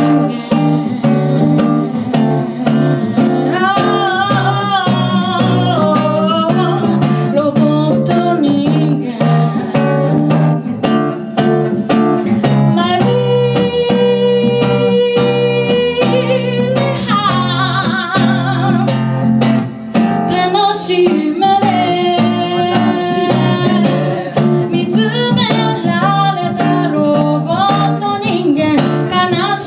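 A woman singing live into a microphone, accompanied by an acoustic guitar. There is one long held note about a third of the way through.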